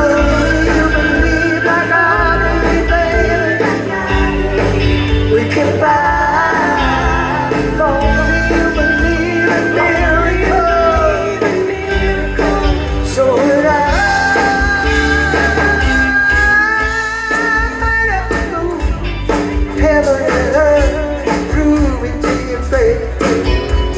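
Live rock band with a singer holding long, wavering notes over drums, bass and guitar.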